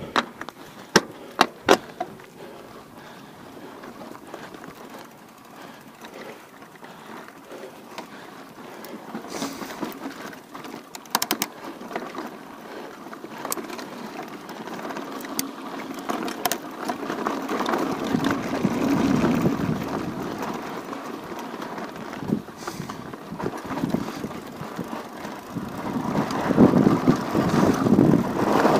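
Steady rushing noise of movement and wind on a chest-mounted action camera's microphone, with a few sharp clicks and knocks in the first two seconds. The rushing swells louder near the end.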